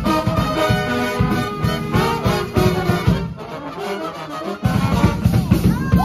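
Street brass band playing a tune: trombones and saxophones over a steady bass-drum beat. The drum drops out a little past the middle and comes back in over a second later.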